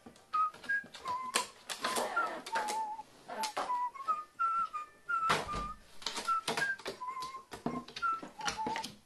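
A carrion crow's beak tapping and pecking at a stiff plastic sheet on a wooden table, with sharp clicks and plastic rustling, over a light whistled tune in the background music.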